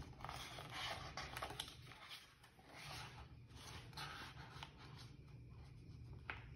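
Faint rustling and rubbing of a picture book's paper pages being handled and held open, in soft irregular swishes with a few light clicks, most in the first second and a half.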